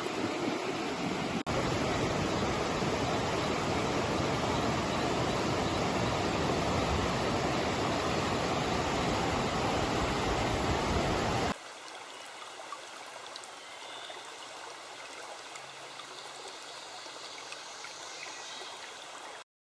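River water rushing over rocks in a steady stream. About two thirds of the way through it cuts abruptly to a quieter stretch of running water, which stops suddenly near the end.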